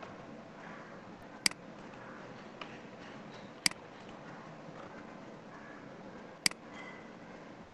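Three sharp computer mouse clicks, about a second and a half in, near four seconds in and about six and a half seconds in, with a fainter click between the first two, over a steady faint hiss.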